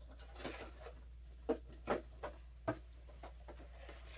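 Rustling, then four light knocks over about a second, as small objects are handled and set down, over a low steady hum.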